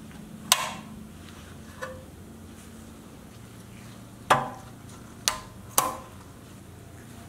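Sharp metallic clinks as a chrome grille is fitted and pressed onto the pressed-steel cab of a restored Tonka pickup. There is one about half a second in, a faint one near two seconds, then three more in quick succession between about four and six seconds, each with a short ring.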